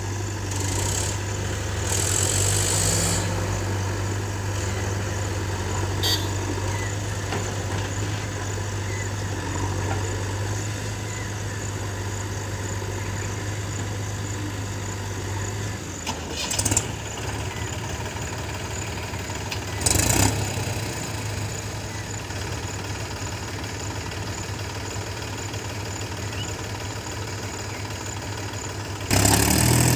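Diesel engine running steadily, its deep hum dropping back about halfway through. Two sharp metallic knocks come a few seconds apart, and near the end the engine suddenly gets louder as it revs up.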